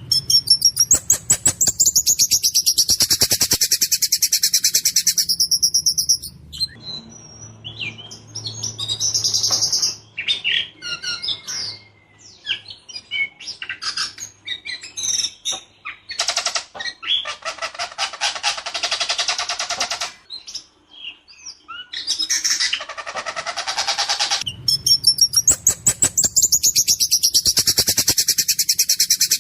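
A songbird singing without pause in a harsh, rough voice. Long fast rattling rolls of high notes come at the start and again near the end, with varied whistled and chattering phrases and a fast trill in between.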